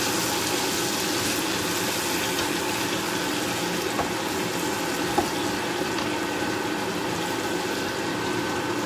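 Chicken in a thick paksiw sauce simmering and bubbling in a frying pan while a wooden spatula stirs it, with a couple of light knocks of the spatula against the pan near the middle.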